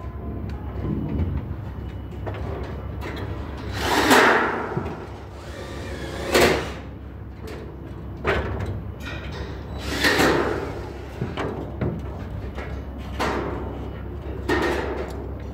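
Steel studs and track being worked by hand: a series of short metal scrapes and knocks, the loudest about four and ten seconds in, over a steady low hum.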